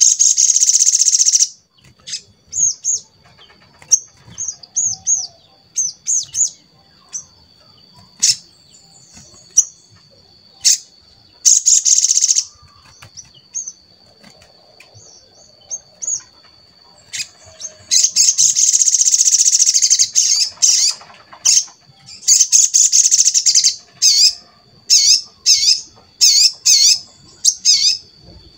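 Brown-throated sunbird (sogon) singing: loud bursts of rapid, shrill twittering alternate with short high chirps, and near the end a run of sharp repeated notes about two a second. A faint steady high tone runs underneath.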